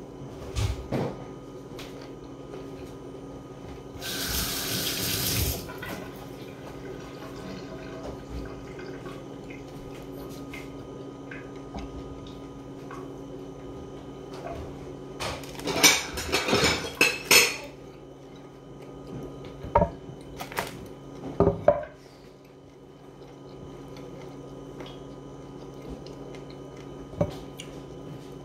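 Kitchen work sounds. A tap runs briefly about four seconds in, dishes and cutlery clatter a little past the middle, and a few sharp knocks follow, all over a steady low hum.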